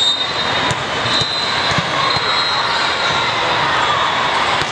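Steady roar of a huge hall full of simultaneous indoor volleyball matches, with crowd noise, shoe squeaks and the sharp knocks of balls being hit blending together.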